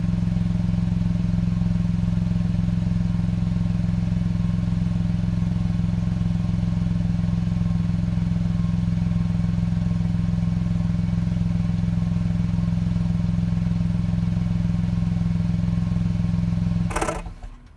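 Honda N-ONE's three-cylinder kei-car engine idling steadily at about 1,000 rpm, warmed up, heard through its exhaust. Near the end it is switched off and the sound stops abruptly.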